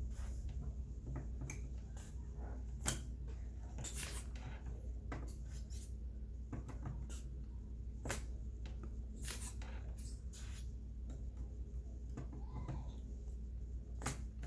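Desoldering iron with a squeeze-bulb suction pump working on a circuit board: scattered small clicks and taps over a steady low hum.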